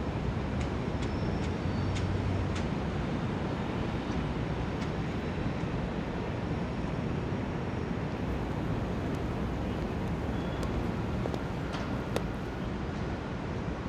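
Steady city street traffic noise: a low, even rumble of passing vehicles, with a few faint small clicks.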